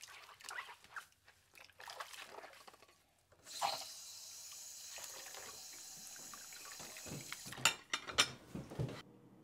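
Water running from a kitchen faucet into a sink. It comes on sharply about a third of the way in and runs steadily, with a few sharp knocks and clinks near the end.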